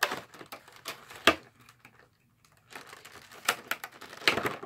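Glued cardboard box being pried and ripped open by hand: irregular sharp cracks and crinkles, the loudest about a second in and a cluster near the end. The heavily glued flaps give way in snaps rather than opening cleanly.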